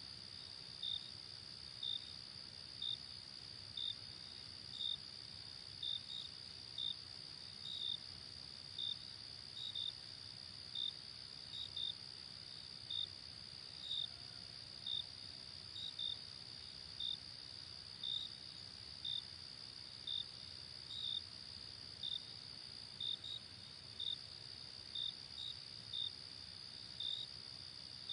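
Crickets chirping: a continuous high trill with a louder single chirp repeating about once a second over it.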